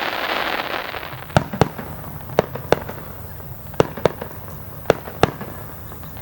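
Aerial fireworks going off: a dense crackling hiss that fades over the first second, then eight sharp bangs in four quick pairs, roughly a second between pairs.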